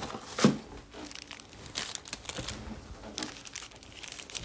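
Foil trading-card packs crinkling and rustling as they are handled and worked out of a tightly packed hobby box, with several sharper crackles.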